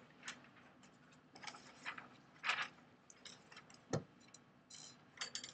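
Scattered faint clicks, taps and rustles of paper being handled and shifted, with a sharp thump about four seconds in and a brief metallic jingle near the end.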